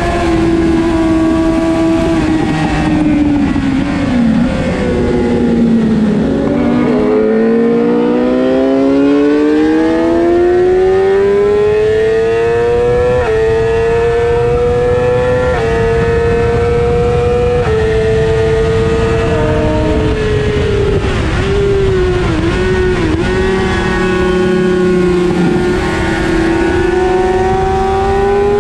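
Onboard sound of a Suzuki GSX-R600 racing motorcycle's inline-four engine at speed over heavy wind rush. The revs fall as it slows about four seconds in, then climb steadily in pitch under hard acceleration with small steps at the gear changes. They dip and waver again past the twenty-second mark and build once more near the end.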